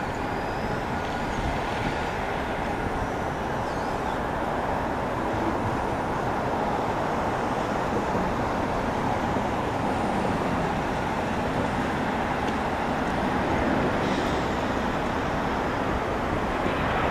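The CFM56-7B turbofan engines of a Boeing 737-900ER on final approach make a steady, rushing roar that grows slowly louder as the jet nears the runway.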